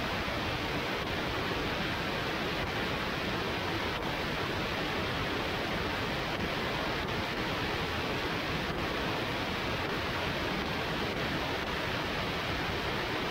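Steady rushing wind noise from airflow over a camera mounted outside on the wing of a Flight Design CTSW light-sport aircraft in flight, with no distinct engine or propeller tone standing out.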